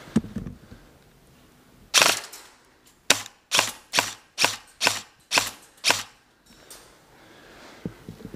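Airsoft gunfire: one loud crack about two seconds in, then seven sharp single shots at a steady pace of about two a second.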